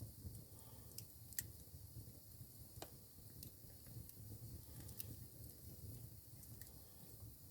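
Campfire crackling quietly: a few sharp, irregularly spaced snaps and pops over a low steady rumble.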